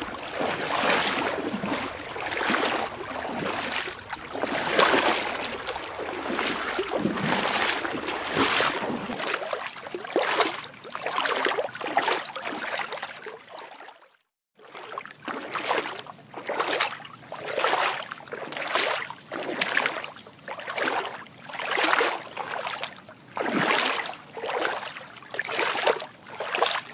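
Water sloshing in rhythmic swishes, about one a second, with a brief break to silence about halfway through.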